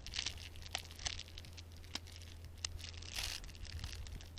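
Thin plastic bag crinkling and rustling in short, irregular bursts with a few sharp crackles, as a rubber band is wound tightly around the twisted corner of the bag holding the bait paste.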